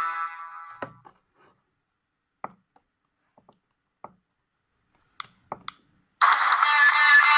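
A Sony Ericsson W580i ringtone fades out over the first second, then about eight short, sharp clicks at irregular spacing, typical of the phone's keys being pressed to move to the next ringtone. About six seconds in, the next ringtone starts suddenly and loudly.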